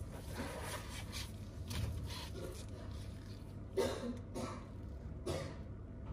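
Rubbing and scraping as an iPad is handled and slid across a work surface by gloved hands, in several short strokes over a low steady hum.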